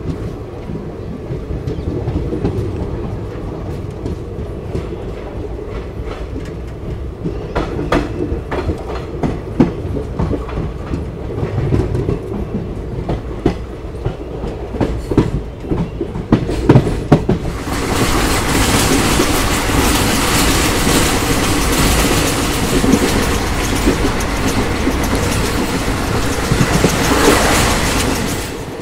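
Passenger coach of a diesel-hauled train rolling out of a station, its wheels clicking irregularly over the rail joints above a low running rumble. About two-thirds of the way in, a loud steady rushing hiss takes over and stays until it cuts off near the end.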